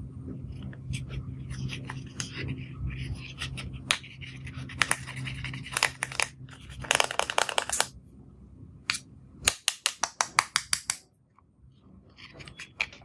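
A plastic stick scraping and digging pressed powder blush out of the pans of a plastic compact, with scratchy crumbling. Around two thirds of the way in comes a quick run of sharp taps of the stick against the plastic. A low hum sits under the first half.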